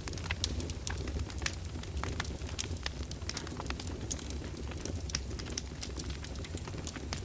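Open wood fire in a fireplace crackling, with frequent irregular sharp pops and snaps over a steady low rumble of the flames.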